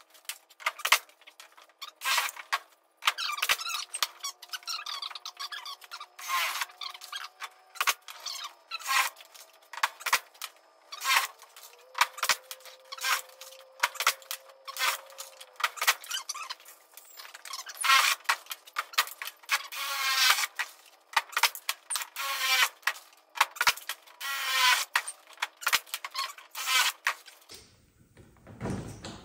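Pneumatic pop-rivet gun cycling again and again as rivets are set in a sheet metal body panel: short bursts of air hiss with squeaks and clicks, about one every second or two.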